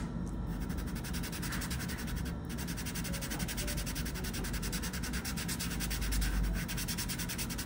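Fingertips rubbing soft pastel powder into sketchbook drawing paper: a steady, dry rubbing.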